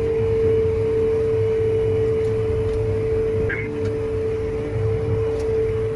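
Tractor engine running steadily, heard from inside the cab: a constant whine over a low drone, with a brief higher chirp about halfway through.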